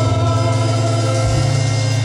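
Organ-style keyboard holding sustained chords as hymn accompaniment, in a gap between sung lines. The bass note changes about a second in.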